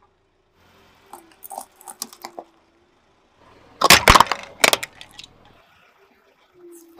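A car tyre crushing a brittle red plastic container full of red liquid: a short burst of sharp cracking and crunching about four seconds in, over a low rumble, with a few faint clicks before it.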